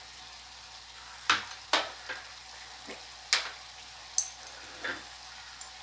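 Chicken frying gently in a metal kadai with a steady soft sizzle, while seven or so sharp taps ring out at uneven intervals.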